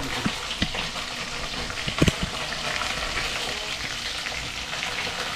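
Fish frying in oil in a metal wok on a gas burner: a steady sizzle with crackling, while a spatula stirs it and knocks against the pan a few times, loudest about two seconds in.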